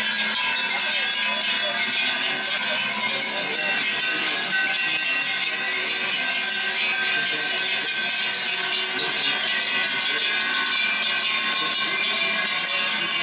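Large cowbells hung on the necks of a walking herd of cows, many bells ringing and clanging at once in a continuous, overlapping din.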